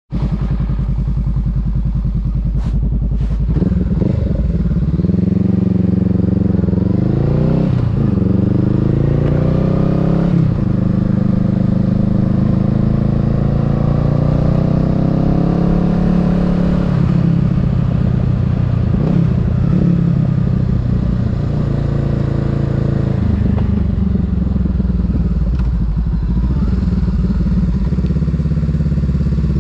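Honda Rebel 500's parallel-twin engine running low and steady, then, after two sharp clicks about three seconds in, pulling away with its pitch rising through several gear changes and settling into a steadier cruise.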